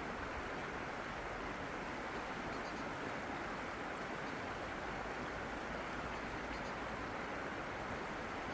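Steady rushing of running water, an even unbroken hiss with no change in loudness.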